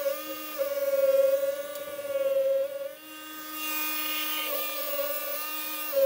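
Snowblower running and throwing snow, a steady whine whose pitch dips and recovers a few times.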